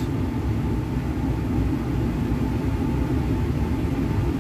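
Steady low rumble of a laboratory fume hood's exhaust airflow, with a faint constant hum.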